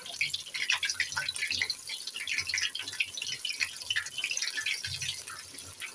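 Besan-battered eggplant slices deep-frying in hot oil in a wok, sizzling with a dense run of irregular crackles and pops.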